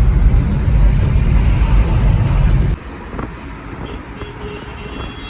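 Road and wind noise of a moving car, a loud low rumble. About three seconds in it cuts off suddenly to a much quieter background with a faint steady hum.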